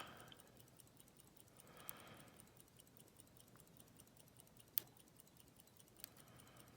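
Near silence with a few faint, sharp metallic clicks of a lock pick probing the pins of a Master Lock Loto padlock under tension, the clearest a little under five seconds in. No pin is setting: the core feels solid and the binding pin can't be found.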